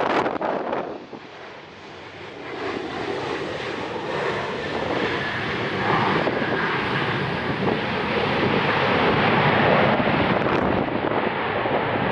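Jet airliner engines: a dense rushing noise that builds from about two seconds in and is loudest near the end, with a faint high whine. Strong wind buffets the microphone at the start.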